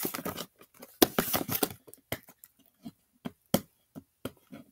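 Cardboard box of an Elmer's slime kit being handled and opened by hand. A short tearing scrape of the flaps about a second in, then a string of sharp clicks and taps as the box is worked open.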